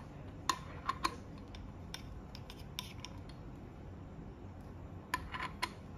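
Light mechanical clicks and taps from coffee gear being handled, a few spaced apart early on and a quick cluster of them about five seconds in.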